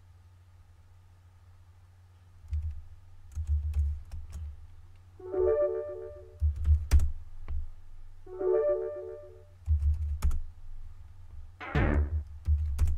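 Typing on a computer keyboard, irregular key clicks with dull low thumps, starting about two and a half seconds in. Short electronic chimes sound every few seconds and a falling swoop comes near the end, over faint background music.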